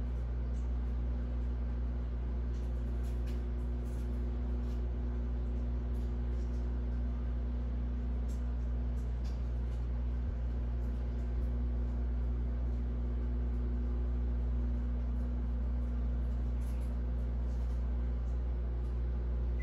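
Steady low mechanical hum, unchanging throughout, with faint small clicks now and then.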